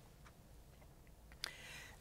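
Near silence: room tone, with a faint click and a soft hiss about one and a half seconds in.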